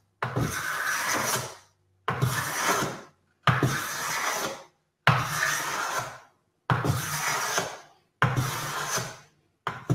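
Hand smoothing plane with a freshly waxed sole shaving a wooden board: seven brisk strokes, each a little over a second long, with short silent gaps between them. The wax lets the plane glide with little resistance.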